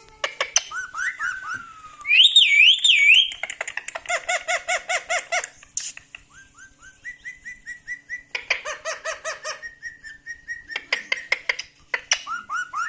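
Pet talking parrot whistling and chattering: short rising whistles, a wavy warbled whistle about two seconds in, and rapid runs of repeated short calls about four and eight seconds in.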